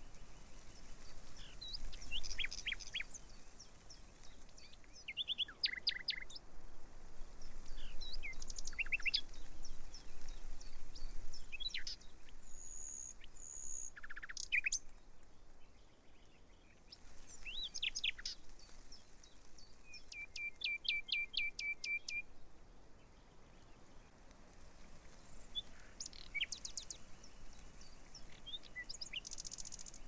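Songbirds chirping and calling in short whistled phrases, with a rapid trill of about a dozen repeated notes about two-thirds of the way through, over a faint steady background hiss.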